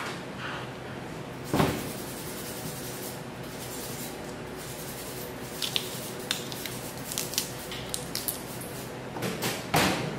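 Raw beef ribs being butchered by hand: a knife cutting and meat being pulled and peeled from the rib bones. There is a sharp knock about a second and a half in, and a run of short clicks and scrapes through the second half.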